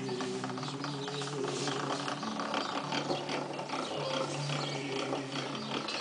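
Hand-cranked pasta machine being turned, its gears clicking steadily as a sheet of noodle dough is rolled through.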